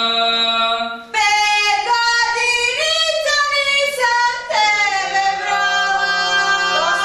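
A girl singing into a handheld microphone in long held notes, taking short breaths about a second in and again about four and a half seconds in.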